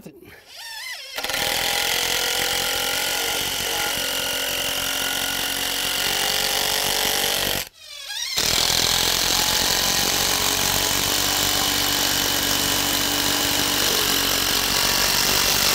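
Cordless DeWalt impact driver hammering a long structural screw into the wooden deck frame. It runs steadily in two long stretches, with a short stop a little past halfway.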